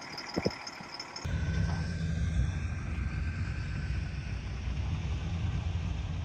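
A couple of faint knocks, then about a second in a steady low rumble of vehicle engines running starts abruptly.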